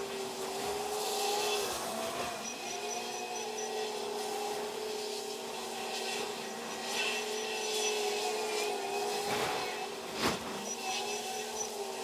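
Heavy machinery working: the diesel engine of a Komatsu WA500 wheel loader running under load with a steady whine that wavers slightly in pitch, and one sharp knock about ten seconds in.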